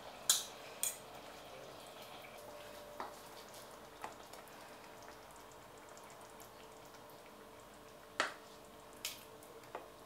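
Short clinks and taps of kitchenware against a ceramic bowl as spaghetti and meat sauce are served: two sharp ones near the start, a few softer ones in the middle, and a loud cluster near the end, over a faint steady hum.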